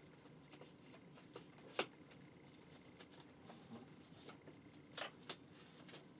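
Faint crinkling and crackling of plastic wrap being peeled and pulled off a boombox: sparse short crackles, a sharp one about two seconds in and two more near the five-second mark.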